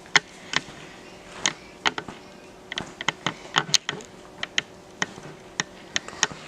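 Irregular sharp clicks and taps of hands-on installation work, a few per second, over a faint steady hum.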